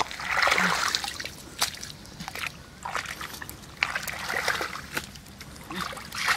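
Hands scooping and slapping thick wet mud in shallow muddy water, with irregular splashing and sloshing. The louder splashes come about half a second in and again around four to five seconds in.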